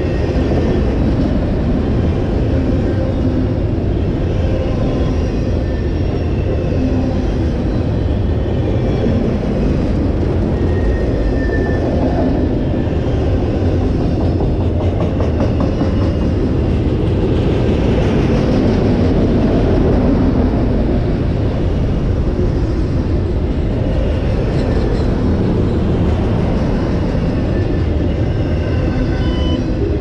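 A freight train of autorack cars passing close at speed: a steady rumble of wheels on rail, with faint short squeals now and then and a slight swell in loudness about two thirds of the way through.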